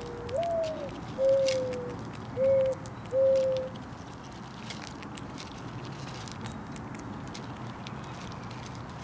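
Mourning dove cooing: a long first note that swoops up and then falls, followed by three shorter, lower coos, the song over within about four seconds. Faint scattered clicks run underneath.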